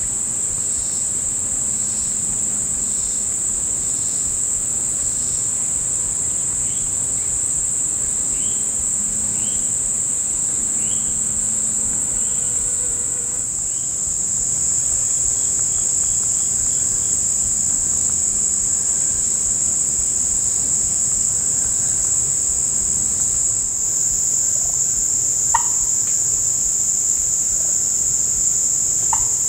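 Steady, high-pitched drone of an insect chorus, unbroken throughout, with a run of faint, evenly spaced chirps partway through.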